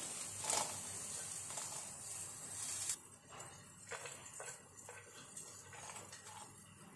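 Faint rustling and soft taps of fried dried red chillies and cashews being pushed off a plate into a steel mixer jar, over a faint high hiss that stops about three seconds in.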